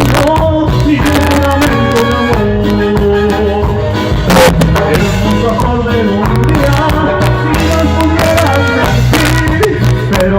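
Live band playing an instrumental stretch of a dance tune, with a steady bass line, drums and melody instruments.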